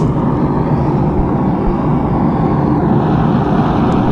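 Forge running: a steady, loud rushing noise of the burner or blower while a billet of stacked quarters heats toward welding temperature.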